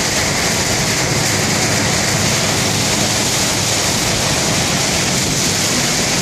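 Steady, loud rush of heavy hurricane rain hitting a moving car's windshield and body, mixed with wind and the hiss of tyres on a flooded road.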